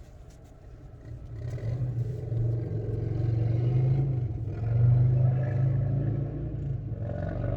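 A motor vehicle's engine rumbling nearby, a low steady drone that swells up about a second in and stays loud, like a car revving or idling close by.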